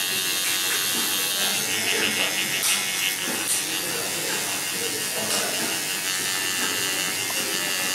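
Tattoo machine buzzing steadily as the needle works ink into skin.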